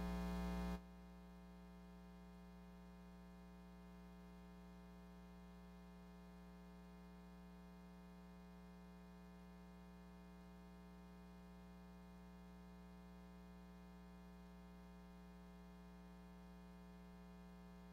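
Near silence with a faint steady hum, a few even tones held without change; it drops to a lower level under a second in.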